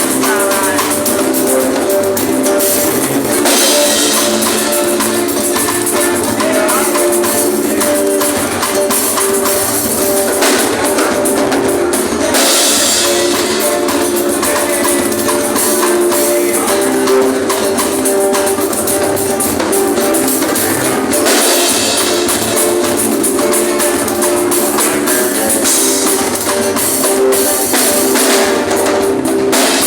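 A live band playing: drum kit and tambourine keeping a steady beat under sustained instrumental notes.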